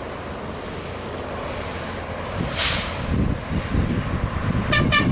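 Intercity coach bus approaching on the highway: a brief hiss about halfway through, then its engine and tyre rumble growing louder. Near the end its multi-tone air horn sounds in quick, pulsing blasts.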